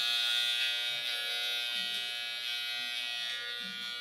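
Corded electric hair clippers running steadily at one pitch, held clear of the hair and not yet cutting.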